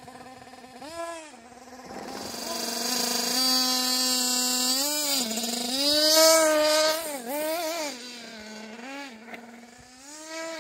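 Small nitro two-stroke engine of a 1/8-scale RC buggy running, its pitch rising and falling again and again as the throttle is worked. A loud rush of noise builds about two seconds in and peaks around six seconds as a buggy runs close by.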